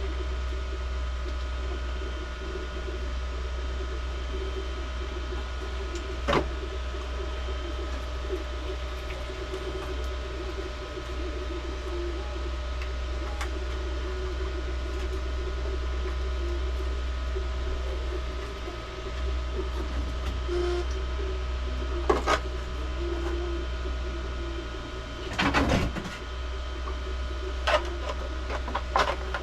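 Steady hum of a 3D printer running, its stepper motors giving small shifting tones. Over it come a few sharp clacks of 3D-printed PLA armour pieces being handled and fitted together, with a cluster of knocks about 25 seconds in.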